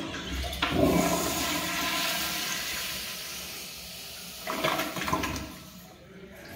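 Commercial flushometer toilet flushing: a loud rushing of water that peaks about a second in and slowly fades, with a second surge about four and a half seconds in.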